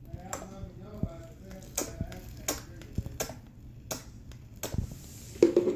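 Wet, sticky slime being worked by hand around a fizzing bath bomb, giving irregular sharp clicks and pops about every half second to second, with a louder low thud near the end.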